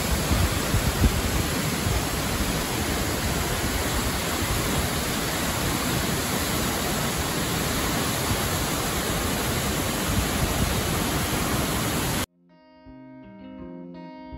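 Tamanawas Falls, a tall waterfall, heard up close at its misty base: a loud, steady rushing roar. It cuts off suddenly about twelve seconds in and gives way to quiet plucked guitar music.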